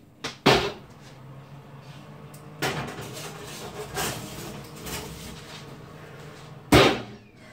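A foil-lined roasting tray of chicken and vegetables being slid into an oven, with several knocks and rattles. Near the end the oven door shuts with a loud bang.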